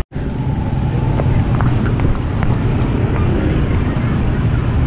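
Busy street ambience: a steady low rumble of traffic and crowd noise with a few faint clicks. The sound drops out for an instant just after the start.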